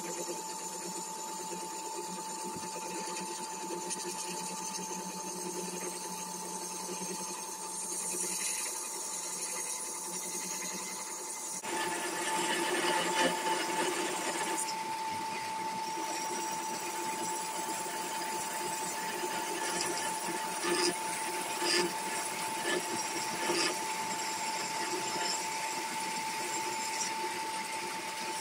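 Wood lathe running with a steady hum while a turning tool cuts a spinning poplar blank. About twelve seconds in the cutting gets louder and rougher, with a few short, louder scrapes later on.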